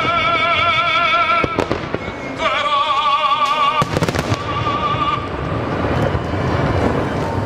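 Fireworks bursting and crackling over music with an operatic voice holding long, wavering notes. Sharp bangs cut through the singing, and a thicker crackle fills the second half.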